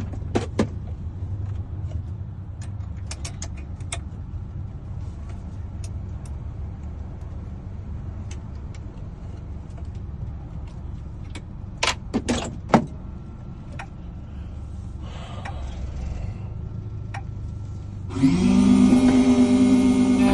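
Scattered metal clicks and handling over a steady low hum, then near the end an electric key-cutting machine's motor switches on and spins up to a steady whine.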